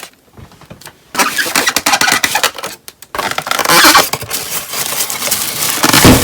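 Cardboard and foam packing rustling and scraping as a boxed VCR is opened and pulled out of its carton. It starts about a second in and pauses briefly near the middle.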